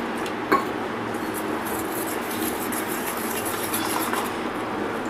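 A wire whisk stirring gram-flour batter in a stainless-steel bowl, ticking and clinking against the metal. There is one sharper clink about half a second in.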